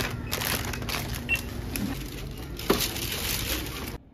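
Groceries handled at a shop checkout: packaging crinkling and items knocking against a plastic shopping basket over the shop's background noise, with one short beep about a second in and a sharp knock near three seconds. The sound drops to a faint hush just before the end.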